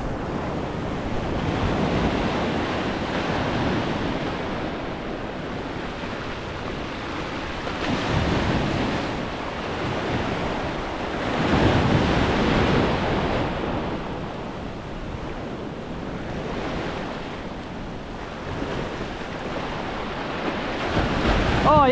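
Ocean surf breaking and washing up the sand close by. It rises and falls in slow surges as each wave comes in and drains back.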